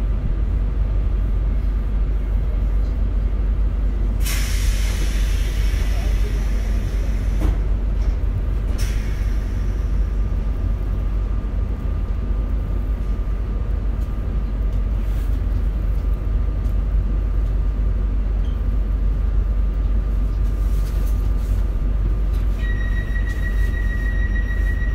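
RER commuter train running through a tunnel, heard from inside the carriage: a steady low rumble, with a hissing burst about four seconds in that fades over two seconds and a shorter one a few seconds later. A steady high whine starts near the end.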